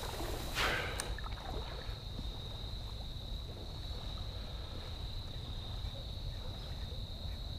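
Spinning reel being cranked to retrieve a cast lure, faint under a steady low rumble and a thin steady high-pitched tone, with a short hiss about half a second in.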